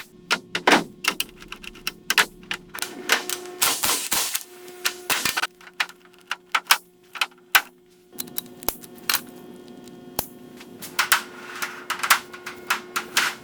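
Rapid, irregular sharp clicks and knocks, some in quick clusters, over a faint steady hum.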